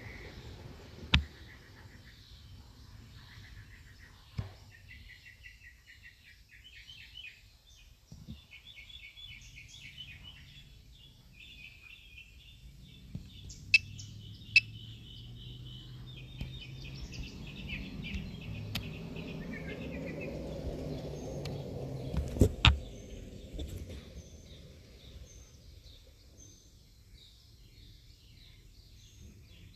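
Birds chirping and trilling in repeated short phrases. A low rumble swells and fades through the middle, and a few sharp clicks stand out, the loudest pair about two-thirds of the way through.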